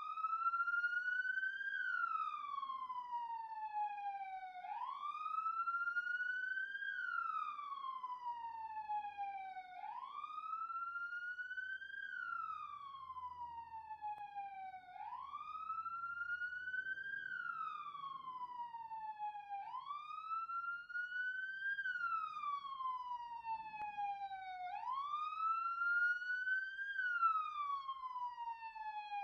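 Siren sound effect in a slow wail: the pitch climbs quickly, then falls slowly, and repeats about every five seconds.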